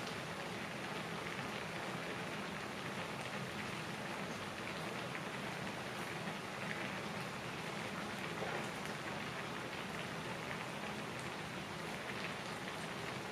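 Udon broth boiling hard in a disposable aluminium pan on a portable gas stove: steady bubbling and spattering, with many small pops.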